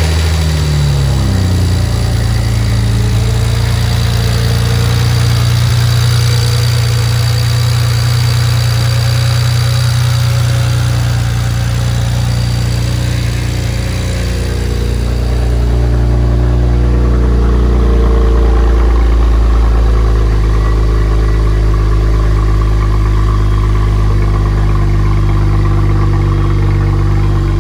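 BMW E90's turbocharged inline-six with freshly fitted catless downpipes, just started: the revs flare and drop back in the first second or two, then it idles steadily.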